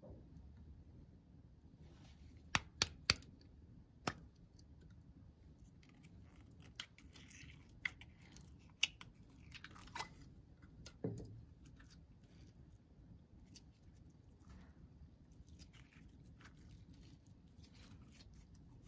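Clear slime full of glitter flakes being squeezed and stretched by hand, giving scattered sharp clicks and crackles. A tight run of three loud clicks comes about two and a half seconds in, and softer crackling follows.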